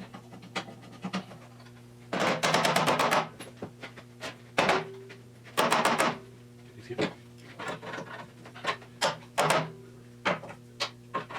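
Sheet-metal frame parts knocking and clattering as a replacement steel box section is handled and pushed into place in a car frame, in irregular sharp knocks with short rattling runs, over a steady low hum.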